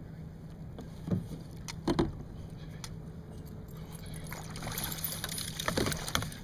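Fishing gear knocking twice against a kayak, then a growing wash of water splashing and sloshing as a hooked coho salmon is brought alongside the kayak to be netted.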